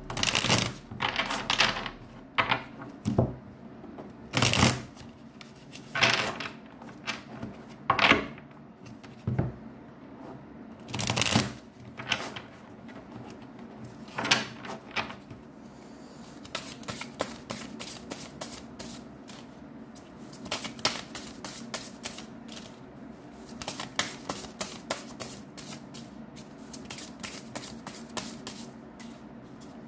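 A deck of tarot cards being shuffled by hand: about a dozen separate loud shuffling bursts over the first fifteen seconds or so, then a long run of quick, quieter card clicks.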